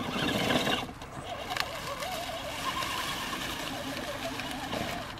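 Remo Hobby 1093-ST 1/10 scale RC crawler's electric motor and drivetrain whining, the pitch rising and falling with the throttle as it crawls over rock and through leaves.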